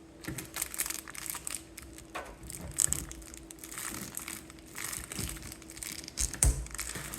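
Protective plastic film being peeled and crumpled off a PC case, crinkling and crackling irregularly with two sharper crackles, one about three seconds in and one near the end. A faint steady hum runs underneath.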